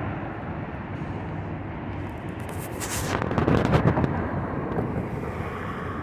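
Wind buffeting the microphone over a steady low rumble, with a louder, crackling gust from about two and a half to four seconds in.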